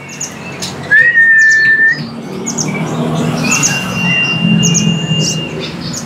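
Caged sunbirds (kolibri ninja) singing: rapid high chirps throughout, a loud level whistle about a second in, and a long held high note from about three and a half to five and a half seconds.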